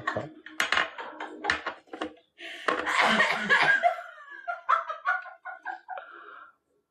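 A man and a woman laughing in short repeated bursts. Near the end there is a run of quick pitched laughing pulses, about four a second, that tails off.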